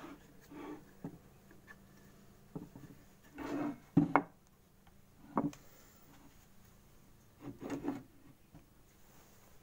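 Wooden jig and boards being handled: scattered knocks and scrapes of wood on wood. The loudest is a pair of sharp knocks about four seconds in.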